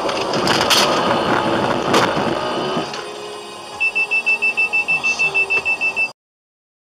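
Road and engine noise heard inside a moving car, with two sharp knocks about one and two seconds in. From about four seconds a rapid electronic warning beep, a single high tone pulsing about six times a second, runs until the sound cuts off abruptly.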